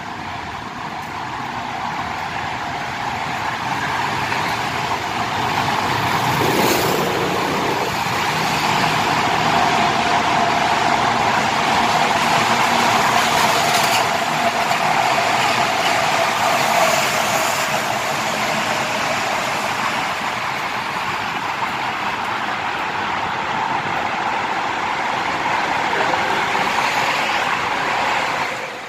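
Road traffic driving through a concrete highway tunnel: pickups, cars and a truck passing close by in a dense, steady drone of engines and tyres. It builds over the first few seconds and swells as vehicles go past.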